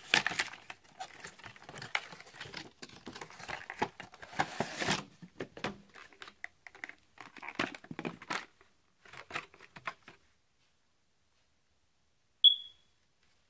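Cardboard box and clear plastic packaging being handled: crinkling, rustling and small clicks as the speaker is taken out, stopping about ten seconds in. Near the end comes one short high-pitched ping.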